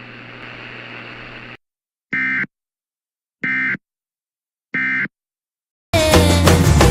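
Emergency Alert System End-of-Message signal: three short, raspy SAME digital data bursts about a second apart, marking the end of the alert. Before them a steady hiss cuts off, and music starts near the end.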